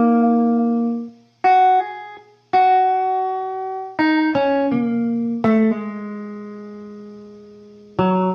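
Electric guitar playing a blues lick one note at a time, slowly, each note plucked and left to ring out and fade, with short gaps between some of them.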